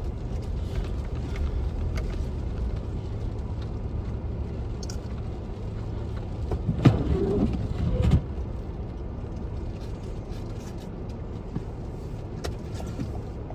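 Car running, heard from inside the cabin while it moves through snow: a steady low rumble of engine and road noise. About six and a half seconds in, a louder sound with a wavering pitch rises for just over a second, then drops away.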